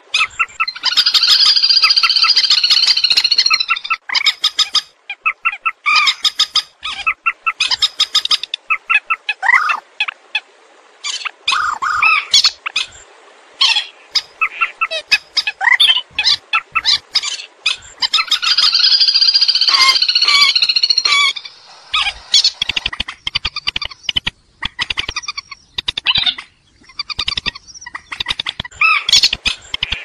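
Purple swamphens calling: two long, loud screeching calls with stacked pitches, about a second in and again about two-thirds of the way through, with a run of short squawks and clucks between and after them.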